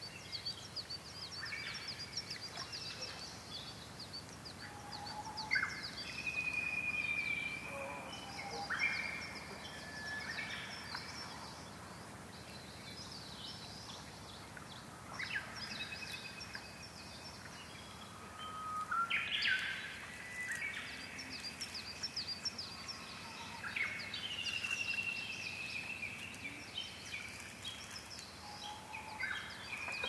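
Wild songbirds singing in a mixed chorus: rapid high chirps and trills with longer whistled notes and a few lower notes, coming in bursts with short lulls. Under them, a faint steady wash of small waves lapping on a pebble lakeshore.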